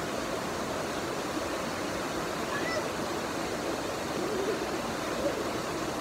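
Water rushing steadily down a small rocky waterfall cascade into a stream.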